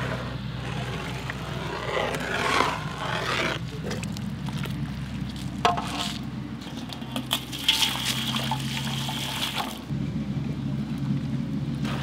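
Hot liquid sloshing and splashing in a large metal cooking pot as it is scooped out with an aluminium mug and poured, in two bouts with a few knocks of metal, over a steady low hum.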